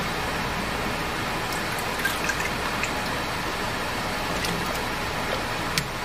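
Steady hiss of hot water in an enamel canning pot, with a few light clinks and splashes as potato slices are slid in off a wire spider strainer.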